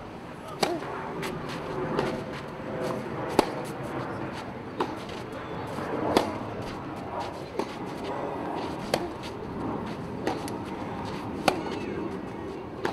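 Tennis ball struck back and forth by rackets in a long baseline rally. There is a sharp pop about every second and a half, about ten strikes in all.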